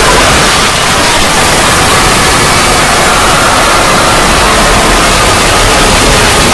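Loud, heavily distorted static-like noise from an edited 'void' logo sound effect, holding steady with a faint wavering tone near the middle of the range.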